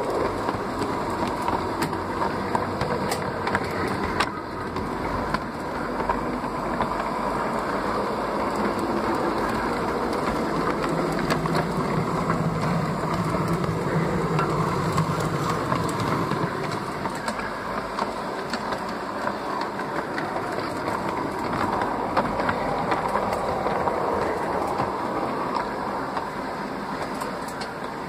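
LGB garden-scale rack locomotive 22460 pulling its carriages, heard from a car of the train: a steady electric-motor and gear whine with the wheels clicking over the track. The running gets louder and lower in pitch for a few seconds about halfway through.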